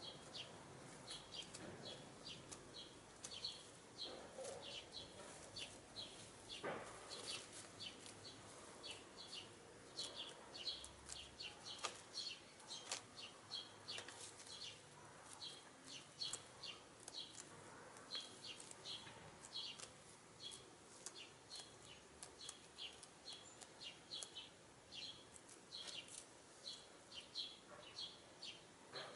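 A small bird chirping over and over, short high chirps about two a second, with one or two soft knocks in between.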